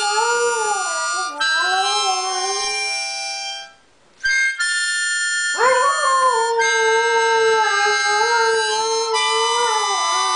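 Dog howling along with a harmonica: long, wavering howls, one tailing off about three seconds in and another rising in at about five and a half seconds and held almost to the end, over steady harmonica chords that break off briefly near four seconds.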